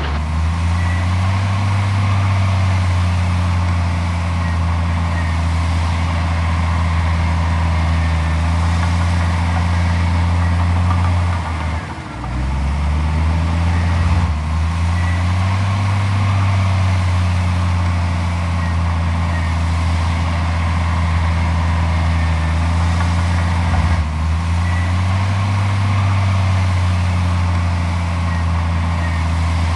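Heavy diesel engine of a Komatsu D41P crawler bulldozer running steadily under load. About 12 seconds in and again about 24 seconds in, its pitch drops briefly and then climbs back up.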